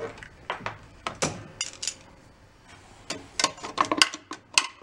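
Metal clinking and clicking: a magnet pickup tool and loose shrapnel from a broken counterbalance bearing knocking against the engine's internals in an open crankcase. The clicks come in irregular bursts, a few at first and a rapid cluster in the last second and a half.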